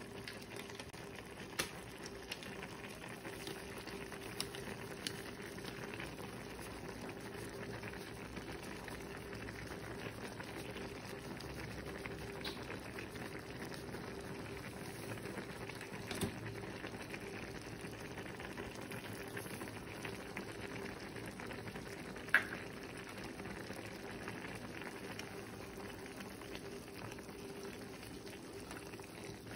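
Chicken broth with fusilli pasta bubbling at a steady boil in a pot, under a low steady hum. A few sharp clicks stand out, the loudest about two thirds of the way through.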